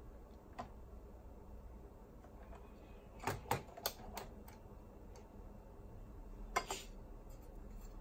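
Sharp clicks and clacks of a cassette deck mechanism's metal chassis and circuit board being handled and fitted back into a boombox's plastic case: a quick run of four clicks about halfway through and two more near the end.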